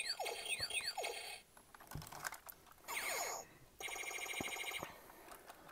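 Electronic laser sound effects from a Hasbro 2001 Deluxe Electronic Talking Buzz Lightyear's speaker as its wrist laser is fired. First comes a quick run of falling zaps, about three a second, then further electronic glides and a steady buzzing tone about four seconds in.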